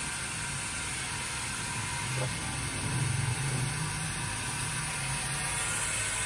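Woodworking bandsaw running steadily, its motor humming under the whir of the moving blade.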